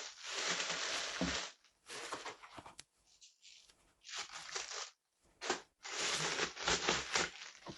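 Packaging being handled and torn open: several rustling, crinkling bursts of about a second each, with a few sharp clicks between them.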